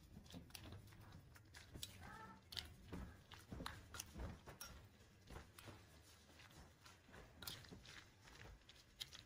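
Faint, irregular wet squelching and soft clicks of raw chicken strips being mixed by hand with marinade in a glass bowl.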